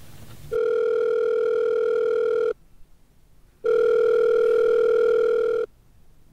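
Telephone line ringing tone: a steady electronic tone sounding twice, each about two seconds long, with about a second's pause between.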